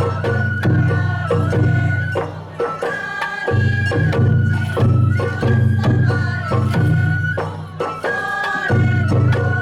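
Sawara-bayashi festival music: a high bamboo flute holds and shifts long notes over steady drumming. The drumming drops out briefly twice.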